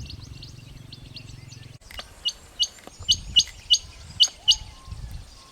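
Harlequin quail calling: a run of sharp, high, downward-sliding notes, two to three a second, starting about two seconds in, over fainter twittering of other birds.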